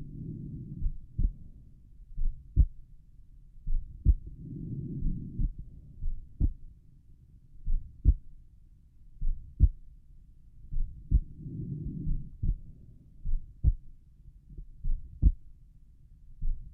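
Human heart sounds heard through a stethoscope over the pulmonic valve area: a slow, relaxed heartbeat with a thump about every one and a half seconds. A soft low rushing noise swells three times behind the beats.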